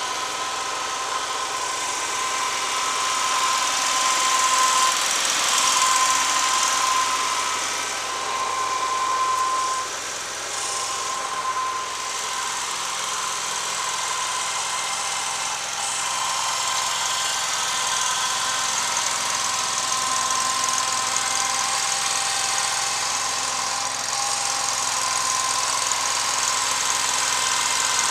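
Vermeer SC252 stump grinder's 25-horsepower Kohler engine running steadily as the machine is driven, with a high whine that breaks off and comes back every couple of seconds.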